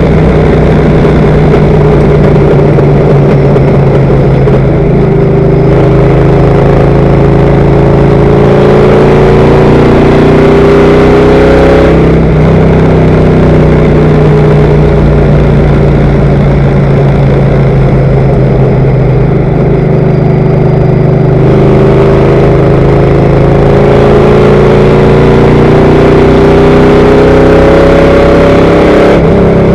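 Stock car's V8 engine at racing speed, heard loud from inside the car: a continuous drone whose pitch climbs slowly, changing abruptly about twelve seconds in and again about twenty-one seconds in as the car goes around the oval.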